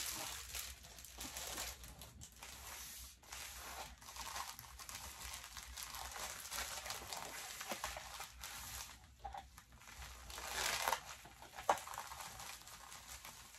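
Plastic mailer bag and plastic packaging crinkling and rustling as they are handled and folded by hand, in uneven surges, with one sharp click near the end.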